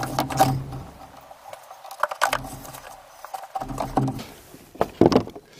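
New panel air filter being pushed and worked into a plastic airbox, with scattered plastic knocks, scrapes and clicks, the loudest pair about five seconds in.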